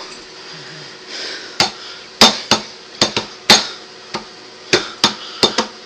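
A run of about a dozen sharp knocks on a hard surface, unevenly spaced, starting about a second and a half in and coming closer together towards the end.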